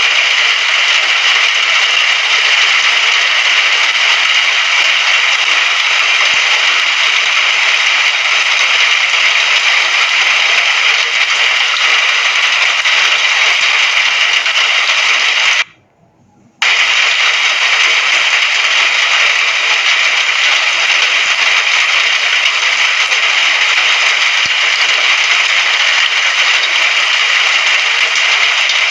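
Steady hiss of heavy rainfall, even and unbroken, with no thunder. About halfway through it cuts out abruptly for about a second, then resumes at the same level.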